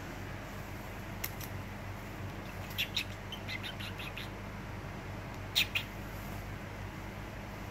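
Young kittens giving short, high-pitched squeaks and chirps: one about a second in, a quick run of them around three to four seconds in, and two more near the end, over a steady low hum.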